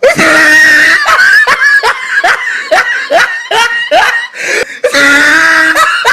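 Laughing sound effect: a person laughing hard, opening with a long drawn-out cry, then a run of short rhythmic 'ha' bursts about three a second, and another long drawn-out cry near the end.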